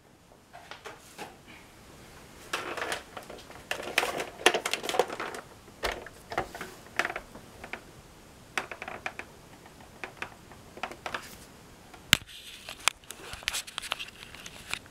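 Hard plastic toy tanks, a 1/18-scale M1A1 Abrams among them, being handled and set down on a cloth-covered floor: irregular clicks, knocks and rustling, with one sharp click late on.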